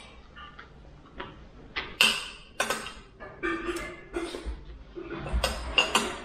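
Cutlery clinking against dishes during a meal: several sharp, separate clinks, the loudest about two seconds in and again near the end.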